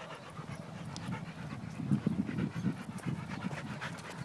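Dogs panting as they trot along, with footsteps on a dirt path; the low, uneven thuds get louder about two seconds in.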